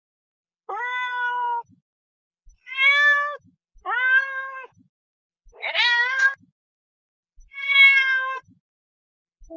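Domestic cat meowing five times, each meow under a second long, with gaps of about a second between them; the fourth meow rises in pitch.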